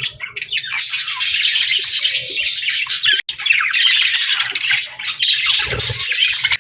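Small parrots chattering and squawking together in dense, overlapping, high-pitched calls, with a momentary break a little past halfway.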